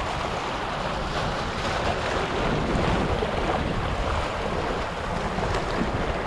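Small waves washing and splashing over shoreline rocks, with wind buffeting the microphone.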